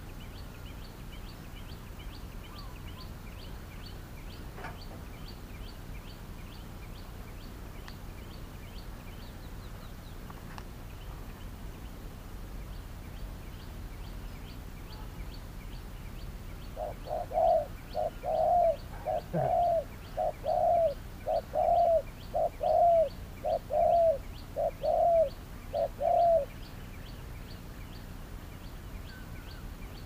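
Spotted dove cooing: a run of about eleven evenly spaced coos lasting some ten seconds, starting a little past the middle. A faint, steady series of high chirps ticks along underneath throughout.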